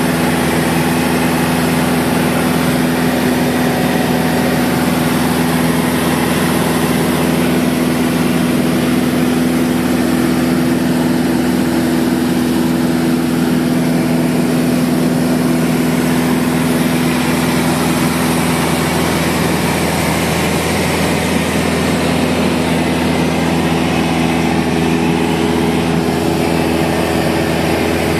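Mooney single-engine piston airplane's engine and propeller droning steadily in cruise, heard inside the cabin. The tone wavers briefly about twenty seconds in, then settles again.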